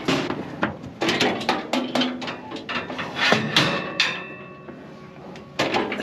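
Metal bangs and rattles from a livestock stock trailer as cattle are loaded and its butterfly gates are swung and latched, with one loud clang about three and a half seconds in that rings briefly.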